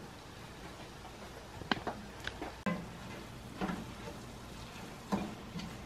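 Wooden spoon stirring chopped spinach in a stainless steel pot, with a few short knocks and scrapes against the pot over a low steady hum.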